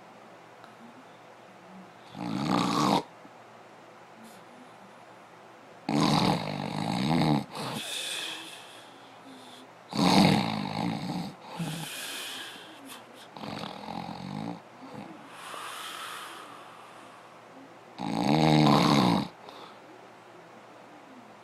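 Snoring: loud rasping snores about every four seconds, with quieter breaths between them.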